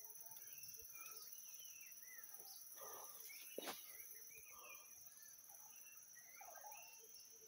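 Faint countryside ambience: several birds calling in short chirps over a steady, high-pitched insect drone, with one sharp click about halfway through.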